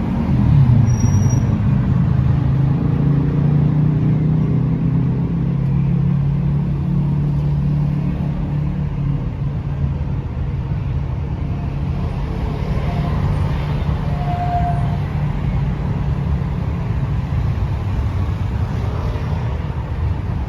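TransJakarta city bus running with a steady low engine rumble and road noise, the hum strongest in the first several seconds.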